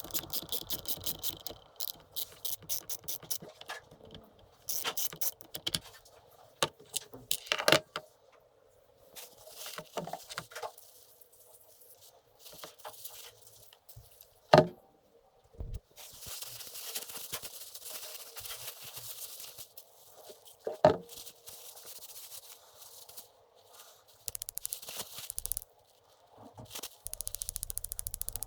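Small metal transmission parts being handled and cleaned by hand: rattling, clicking and scraping, with a few sharper knocks and stretches of hiss.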